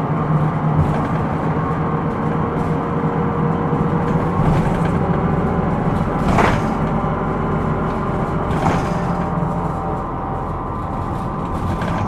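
Hino Rainbow II non-step bus heard from inside while under way: steady engine and road noise with a low hum. There are two short, sharp knocks that ring on, about six and a half seconds in and again about two seconds later.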